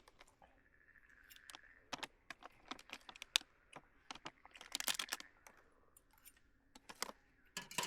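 Irregular sharp clicks and light taps of small objects being handled, a cluster of louder ones about five seconds in.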